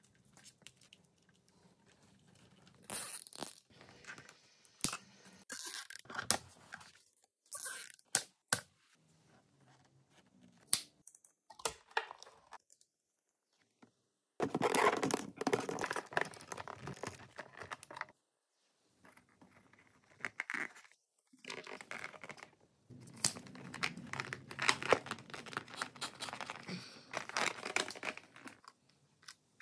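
Close handling noises of electrical wires and clear plastic tubing: crinkling, rustling and tearing sounds with scattered sharp clicks, broken by abrupt drops to silence.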